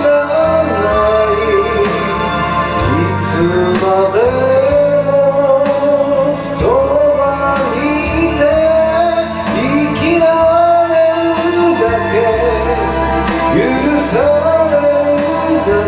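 Karaoke music playing loudly: a backing track with a melody of long, sliding notes over a steady bass line.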